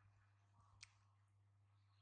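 Near silence: a faint steady low hum, with one faint short click a little under a second in.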